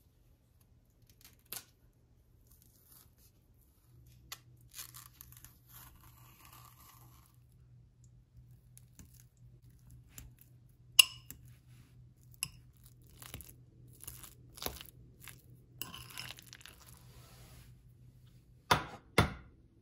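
Ripe bananas being peeled with soft tearing of the skins, then a metal fork mashing banana in a glass bowl, tapping sharply against the glass several times. Near the end come two loud knocks close together.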